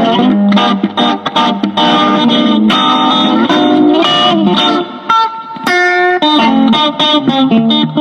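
Background music led by a plucked guitar playing a fast run of notes.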